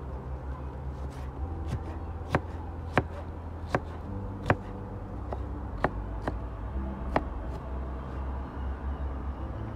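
About seven sharp knocks at uneven intervals, roughly one every half second to second, over a steady low hum.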